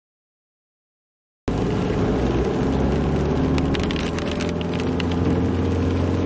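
Dead silence for about a second and a half, then the steady engine and road noise of a ute being driven, heard from inside the cab. A few faint clicks come through about midway.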